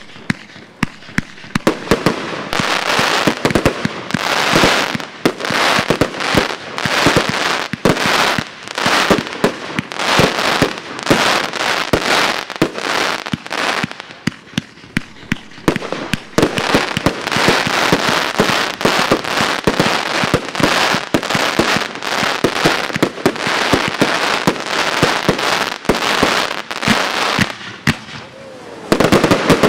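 Evolution Fireworks Noi-Z compound cake firing: a fast run of launch thumps and bursting stars with dense crackling. It eases off briefly about halfway and again near the end.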